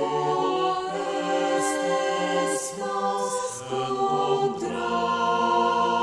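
Mixed choir singing slow, sustained chords, with a low bass part moving under the upper voices and a few hissed 's' consonants of the sung text.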